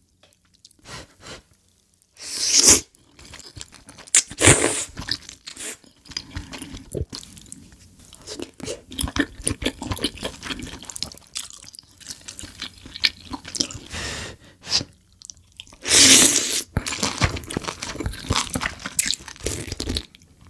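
Close-miked eating sounds of a person eating spicy noodle soup: three loud slurps of noodles and broth, a couple of seconds in, about four seconds in and near sixteen seconds, with wet chewing and smacking in between.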